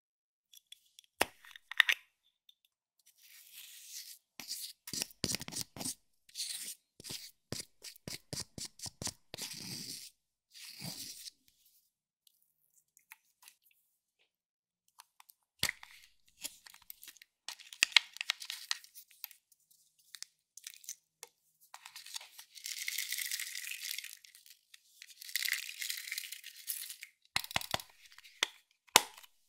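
Plastic makeup compacts being clicked open and handled, with sharp clicks between runs of quick scratchy, crunching strokes.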